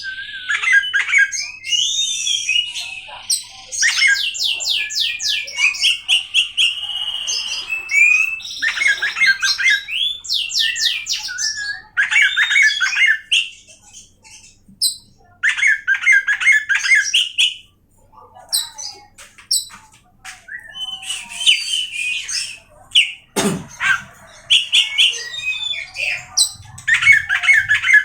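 Oriental magpie-robin (kacer) singing loudly: a varied stream of whistled phrases, rapid trills of repeated notes and harsh scratchy notes, broken by brief pauses. A single sharp knock sounds about two-thirds of the way through.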